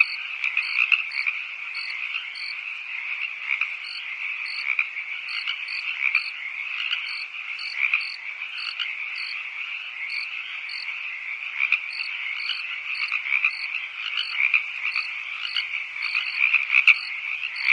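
Dense chorus of many toads calling at once, with crickets chirping over it in short, higher-pitched chirps about one or two a second.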